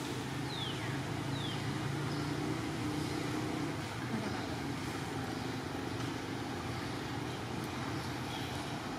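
Steady low outdoor background rumble, with two short high falling chirps about half a second and a second and a half in.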